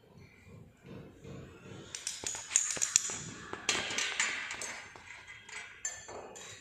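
Glass clinking: a glass pipette and glass test tubes knocking together in a test-tube rack while picric acid is dispensed. Several sharp clinks come from about two seconds in, over a hiss.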